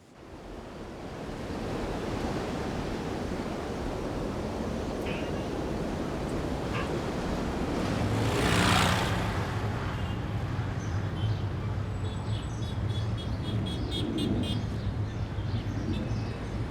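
Outdoor ambience: a steady wash of noise like surf, with one louder swell about halfway through. A low steady hum, like a motor, joins at the same point and carries on.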